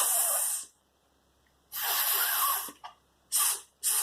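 A person hissing 'sss' in imitation of a snake: a short hiss at the start, a longer one about two seconds in, then two quick short hisses near the end.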